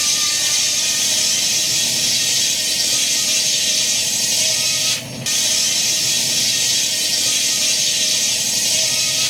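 Steady loud hiss of steam escaping from a Fowler steam traction engine, with a brief dip about five seconds in.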